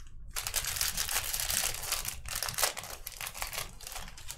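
Plastic trading-card pack wrapper crinkling as it is torn open and handled. The crinkling starts about half a second in and fades near the end.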